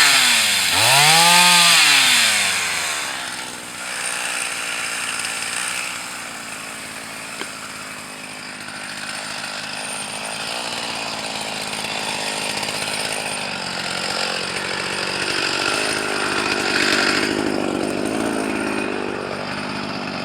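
Husqvarna 44 two-stroke chainsaw revved up and back down twice, then running on steadily while it cuts wood.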